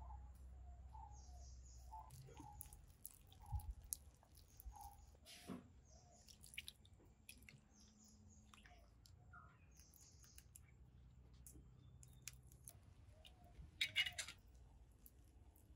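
Faint soft clicking and squishing of a hand mixing flour batter in a ceramic bowl, with small birds chirping faintly in the background. A brief cluster of crackles comes near the end, where a wood fire burns under a wok.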